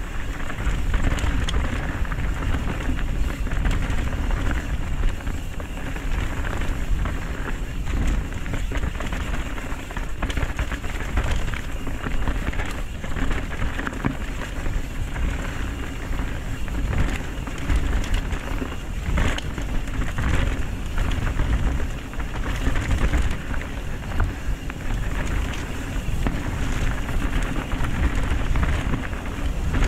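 Mountain bike riding fast down a dirt trail: tyres running over the ground and the bike rattling over bumps, with wind rumbling on the microphone.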